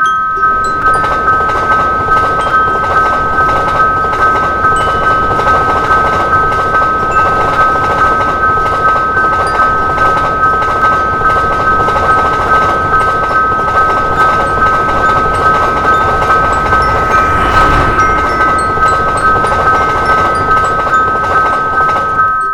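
Level-crossing warning bell ringing on and on in a steady repeating pattern, while a train passes over the crossing, its noise loudest about three-quarters of the way through.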